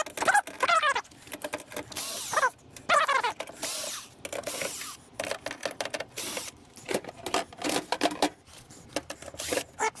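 Irregular clinks, clicks and clatters of metal parts and hand tools as a vintage microwave oven is pulled apart for scrap. A few short squeaky tones falling in pitch come through in the first few seconds.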